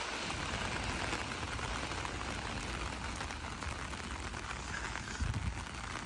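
Heavy rain falling steadily on wet pavement and grass, an even hiss of rain. A brief low thud about five seconds in.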